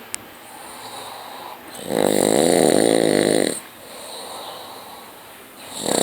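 A man snoring in his sleep on a sofa. One loud snore comes about two seconds in and lasts about a second and a half, followed by a quieter out-breath. The next snore starts near the end.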